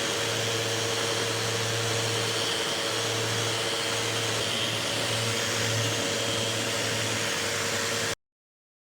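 Festool Rotex random-orbital sander running steadily while sanding hard white oak, a loud whirring hum over a rushing noise, which cuts off abruptly about eight seconds in.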